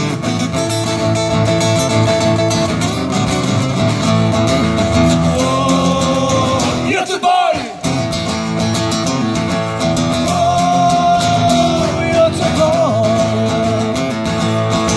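Live acoustic rock band playing: two acoustic guitars strummed, a snare drum keeping the beat, and a man singing. About seven seconds in the sound briefly dips and warbles.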